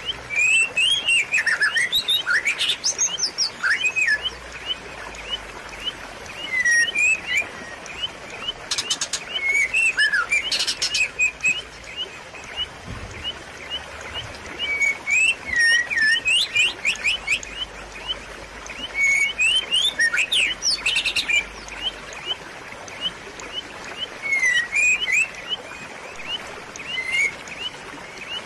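Birds chirping and calling busily in short quick notes, with brief rapid rattles about a third of the way in and again about two-thirds through, over a steady rush of running water.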